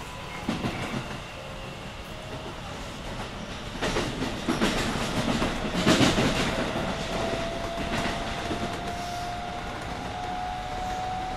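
Shin-Keisei 8900 series electric train accelerating, heard from inside the car. From about four seconds in, the whine of its Mitsubishi IGBT inverter and traction motors climbs slowly in pitch over the rumble of the running gear and clicks of wheels over rail joints.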